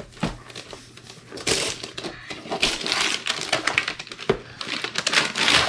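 Wrapping paper being torn and crinkled off a small gift box, in irregular rustling rips that grow loudest near the end.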